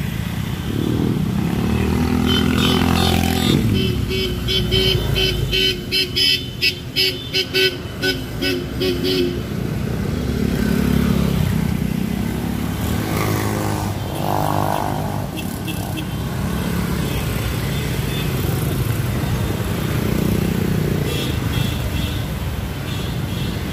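Engines of motorcycles and cars in slow motorcade traffic, running and revving up and down, with a horn tooting in a quick series of short blasts from about six to nine seconds in.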